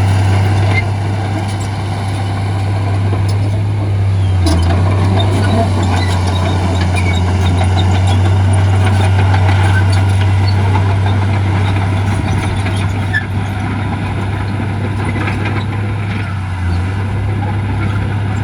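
Heavy diesel engine of earthmoving machinery running steadily under load, a deep constant hum that dips briefly twice.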